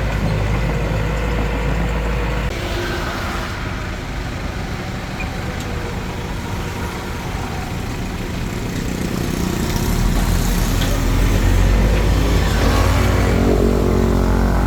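Hitachi DX45M bulldozer's diesel engine running steadily, easing off for a few seconds, then revving up under load from about ten seconds in.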